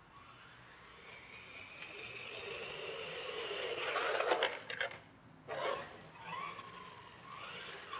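Hosim 9125 1:10 RC truck's dual brushed electric motors whining, rising in pitch and growing louder over the first four seconds, then cutting out and coming back in a few short bursts of throttle.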